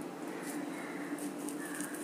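A low steady hum with faint soft clicks and rustles of hands handling soft rice-flour and greens dough on plates.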